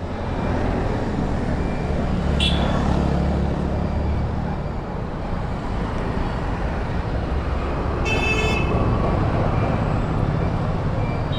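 Street traffic noise with engines running, a short high beep about two and a half seconds in, and a vehicle horn honking once for about half a second around eight seconds in.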